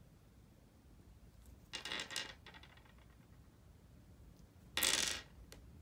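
Small plastic slime charms clicking and clattering against a hard tabletop and each other as they are handled and set down, in two brief bursts, the second one louder, about five seconds in.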